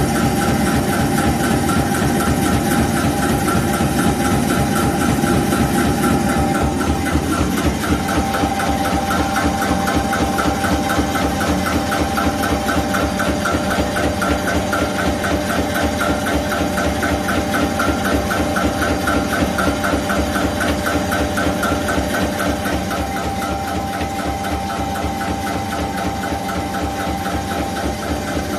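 Rubber preforming machine running steadily: a constant machine hum with a fast, even pulsing over it, a little quieter near the end.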